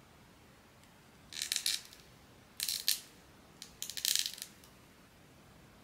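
Blind-box packaging and small plastic figure parts being handled: three short bursts of crinkling and light clicking.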